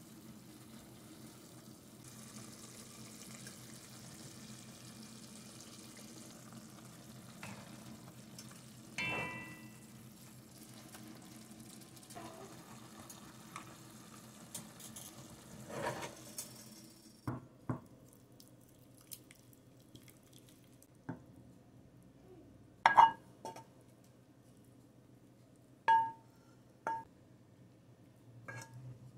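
Kale simmering in a little water in a nonstick pan with a faint hiss, a wooden spatula knocking against the pan now and then as it stirs. After the hiss stops, a few sharp ringing clinks against a ceramic bowl as the greens are spooned out, the loudest about two-thirds of the way through.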